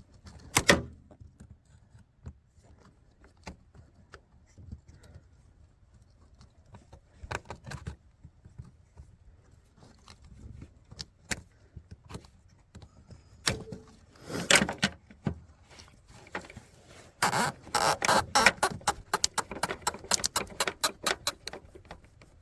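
Scattered clicks and knocks, then a dense run of rapid clicking and rattling about three-quarters of the way through: hands and tools working the plastic fuel return-line T fitting loose from a TDI diesel's fuel filter.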